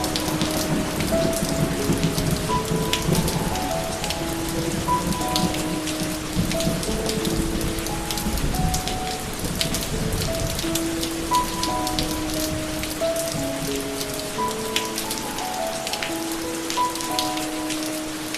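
Steady rain falling, with scattered drops pattering, under a slow melody of single held notes. A low rumble sits beneath the rain through roughly the first half.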